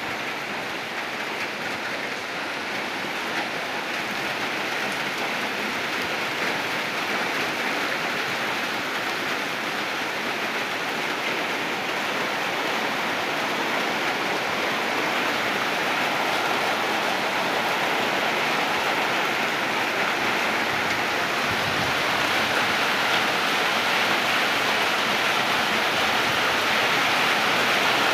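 Heavy rain falling steadily on open ground and trees, a dense even hiss that grows a little louder toward the end.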